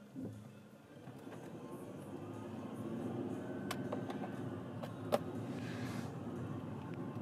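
Car on the road, its road and engine noise rising over the first couple of seconds as it picks up speed, then running steadily. A short thump sounds just at the start, and a sharp click comes about five seconds in.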